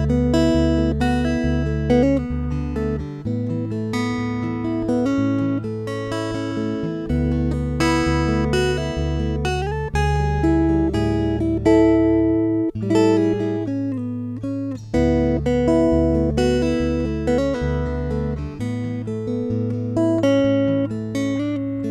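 Acoustic guitar picked through a Skysonic Pro-1 soundhole pickup: a melody of plucked notes over a bass line of low notes that change every second or so.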